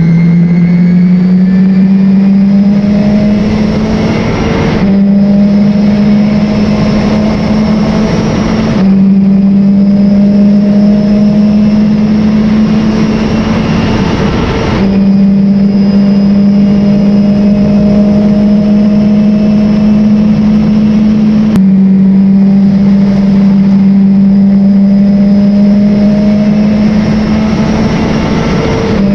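Race car engine at high revs heard from inside the car, apparently the Nissan. It runs hard and continuously, its pitch climbing slowly and then dropping back sharply about four times.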